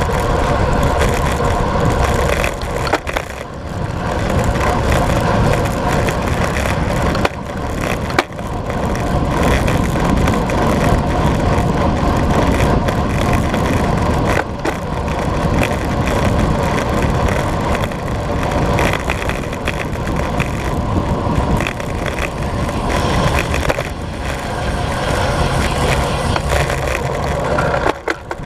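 Wind rushing over the camera microphone and road-bike tyres rolling on asphalt at about 40 to 54 km/h, a loud steady rush with brief dips a few times.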